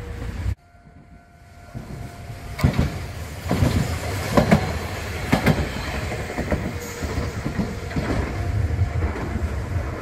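Kagoshima City Tram low-floor 'Yutram' streetcar passing close by on ballasted track. Its wheels clack over the rail joints in a run of sharp knocks, some in quick pairs (the 'katan-koton' of this line), then the noise eases off. The sound drops away suddenly about half a second in, before the tram's approach builds.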